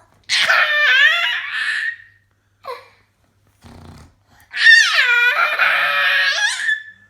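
A young child squealing with laughter: two long, high-pitched, gliding squeals, the second starting about four and a half seconds in. A short, faint, low sputter comes just before the second squeal.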